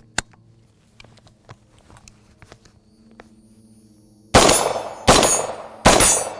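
Suppressed Genesis Arms Gen12 semi-automatic 12-gauge short-barrel shotgun firing 00 buckshot: three quick shots about three-quarters of a second apart, starting about four seconds in. Before them come a sharp click of the charging handle being racked and a few quiet handling clicks.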